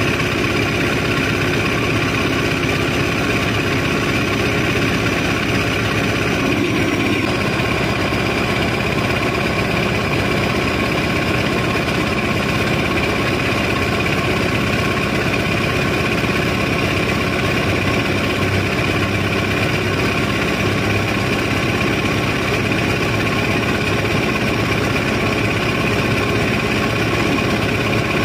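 A large engine running steadily at an even speed, a continuous mechanical drone with several held tones.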